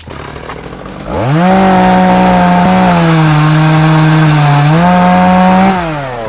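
Two-stroke chainsaw revved up to full throttle about a second in; its pitch dips for a couple of seconds in the middle, climbs back, then falls away near the end as the throttle is released.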